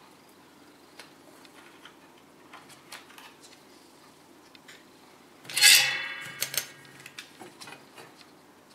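Light clicks and rustles of fingers handling thin wire and a small plastic connector. About five and a half seconds in comes a sudden loud clatter that rings briefly and fades, followed by a few sharper clicks.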